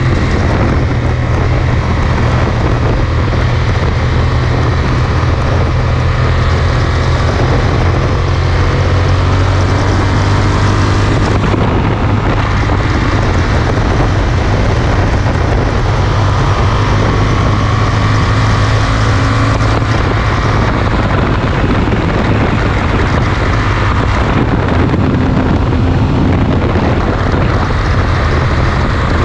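Yamaha Super Ténéré's parallel-twin engine running through a Mivv Speed Edge aftermarket silencer, holding a steady cruise at motorway speed with a constant low drone, mixed with wind rush over the microphone.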